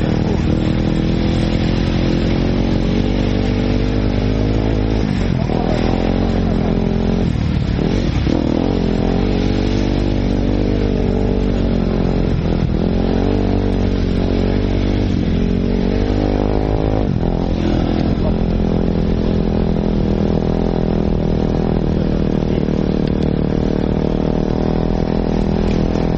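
Enduro dirt bike engine heard close from the rider's helmet, running under throttle with its pitch dropping briefly and climbing back several times as the throttle changes.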